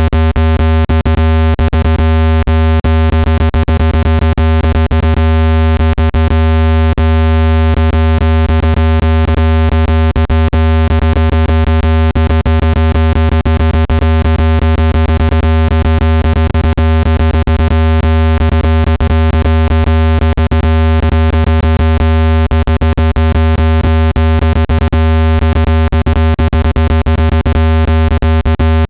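Loud, steady, low-pitched electronic buzzing tone with evenly spaced overtones, crackling with rapid irregular clicks. It is a speaker water-eject tone, played at full volume so the speaker cone vibrates and shakes trapped water droplets out of a phone's speaker grille.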